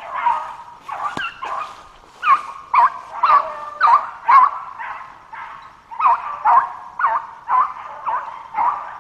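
Deer hounds baying on a trail: a steady string of loud barks, about two a second, with a short lull around the middle.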